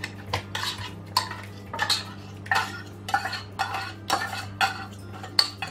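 Metal spoon scraping and knocking inside an opened tuna can, tapping the tuna out into a plastic mixing bowl: a string of irregular metallic clinks and scrapes, some ringing briefly.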